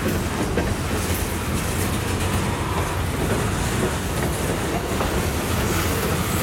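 Freight cars of a manifest train rolling past: a steady rumble of steel wheels on rail.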